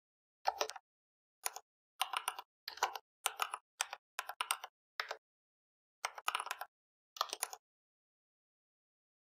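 Computer keyboard typing in short bursts of keystrokes with silence between them; the typing stops about three quarters of the way through.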